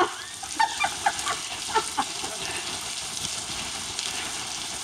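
Steady hiss of falling rain, with several short shouted voices in the first two seconds.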